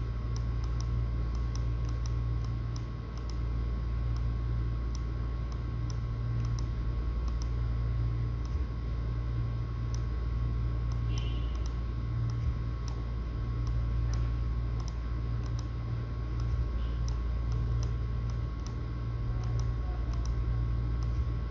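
Steady low electrical hum with faint, irregular light clicks over it.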